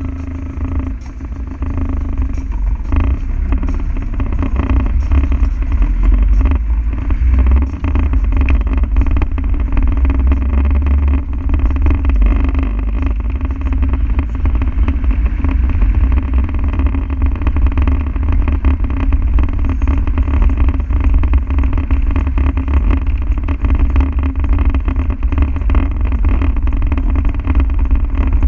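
Land Rover Defender's diesel engine running steadily as the vehicle drives along a road, a heavy low rumble mixed with road noise.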